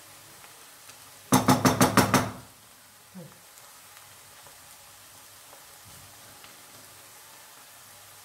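A wooden spoon knocked rapidly against a frying pan, about seven sharp, ringing taps in under a second, about a second in. Around it, faint sizzling of spinach frying in the pan.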